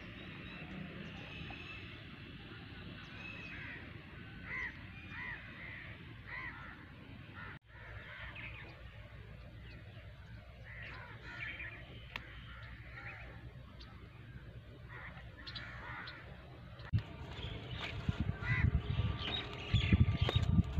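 Birds calling repeatedly in short, arched calls over a faint steady outdoor background. Low rumbling thuds grow louder near the end.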